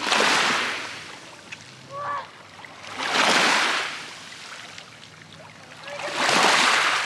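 Small waves washing onto a stony lakeshore: three swells of water about three seconds apart. A short pitched note sounds about two seconds in.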